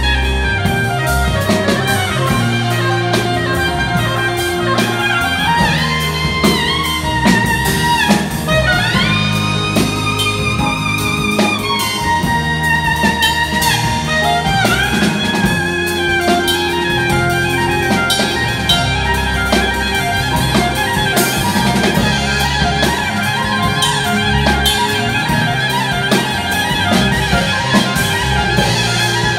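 Live jazz band playing: a soprano saxophone carries the lead line, with vibrato and sliding rises in pitch, over drum kit, electric bass, keyboard and electric guitar.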